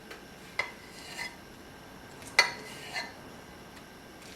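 A knife clicking and scraping against a plate as a cooked potato is cut into sections: four short, light strikes, the sharpest about two and a half seconds in.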